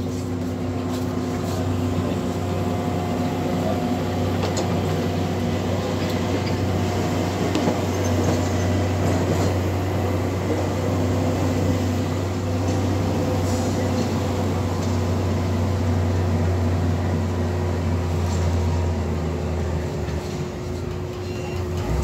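A heavy diesel engine, most likely the road-construction machinery such as the motor grader, runs steadily with a constant low drone and an even pitch. Road vehicles pass over it.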